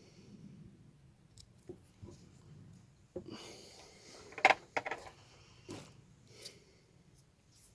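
Small hand tools and handling noise at a workbench: scattered clicks and rustling, with a cluster of sharp clicks about halfway through.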